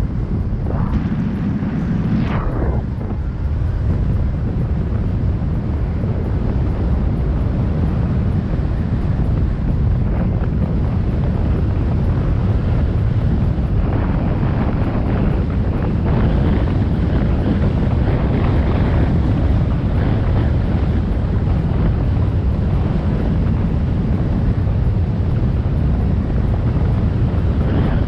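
Steady, loud wind buffeting on a moving camera's microphone, a low rumble of travel noise with no break.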